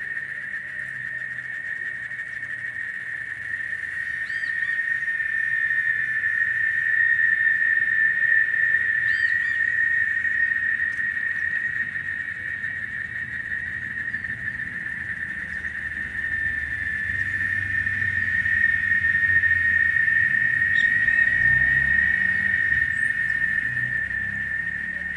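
Cicadas droning in a continuous high-pitched chorus that swells and eases in slow waves, with a few short, higher chirps over it.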